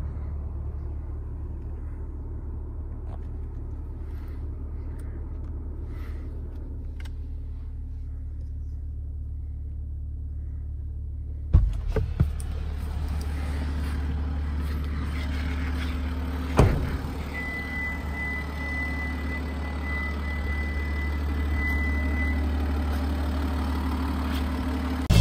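Genesis GV80's 3.0-litre inline-six turbodiesel idling steadily with a low drone. It is heard first inside the cabin, then louder and fuller from the front of the car after a thump about halfway through. A second thump follows, and a steady high beep sounds for about five seconds near the end.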